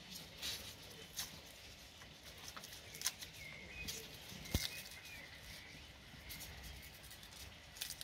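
Faint rustling and light clicks of plastic-gloved hands pulling sliced onion apart into rings on a wooden cutting board, with a couple of sharper clicks about three and four and a half seconds in.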